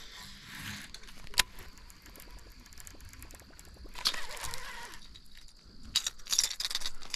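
Baitcasting reel being cranked on a lure retrieve: a sharp click about a second and a half in, then the rapid fine ticking of the reel turning, denser and louder near the end.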